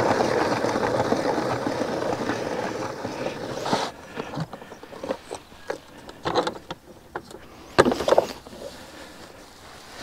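The plastic spin-dryer basket of a hand-cranked portable washing machine whirring and fading as it spins down over the first few seconds. Then a run of sharp plastic clicks and knocks as the lid and parts are handled, the loudest about eight seconds in.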